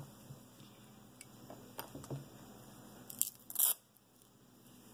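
Small handling noises as carbon-fibre drone frame parts are moved about on a workbench mat: a few light clicks and, about three and a half seconds in, a brief scraping rustle.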